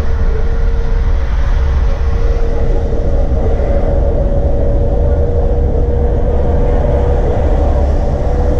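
Mercedes-Benz O405NÜ bus's diesel engine and running gear, a deep steady rumble with a steady whine held over it.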